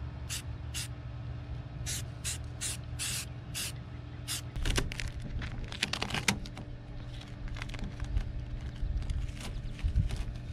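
Aerosol spray-paint can sprayed in a series of short hissing bursts through a stencil over the first four seconds. Then comes crinkly rustling as masking tape and the paper stencil are peeled off the painted panel.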